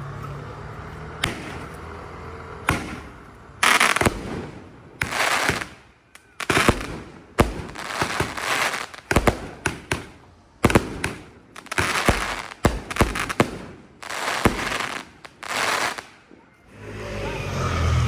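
A Dragon Fireworks 'Dragon's Lamp of Aladdin' 16-shot fireworks cake firing: a quick run of sharp bangs over about fifteen seconds, each trailed by up to a second of hissing crackle.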